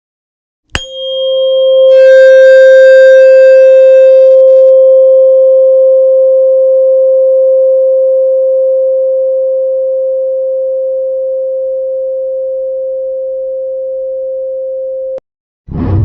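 A pure 528 Hz tone starts with a click under a second in and rings steadily. For a couple of seconds near the start it is joined by a shimmer of higher ringing tones. It then slowly fades and cuts off abruptly, followed by a short low burst near the end.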